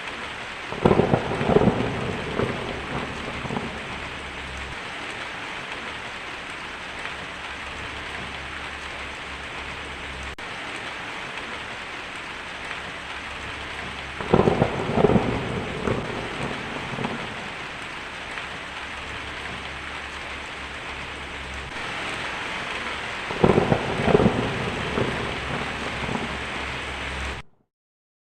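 Heavy rain pattering steadily on a tin roof, with three rolls of thunder about a second in, around halfway and again near the end. The sound cuts off abruptly just before the end.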